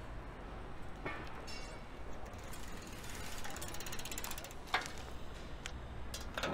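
Bicycle freewheel ticking rapidly as the rider coasts, over a low steady rumble, followed by a couple of sharp clicks as the bike comes to a stop.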